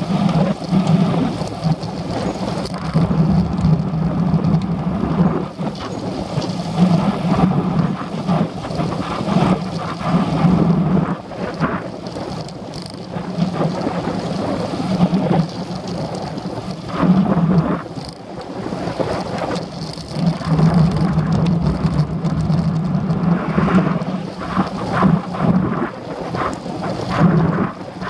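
Wind rumbling and buffeting on the microphone of a handlebar-mounted camera on a moving road bike, with road rumble and small rattles, rising and falling unevenly.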